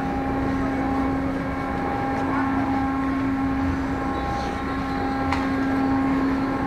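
A car ferry's engines and machinery running: a steady drone with a constant hum over a low rumble. A single sharp click about five seconds in.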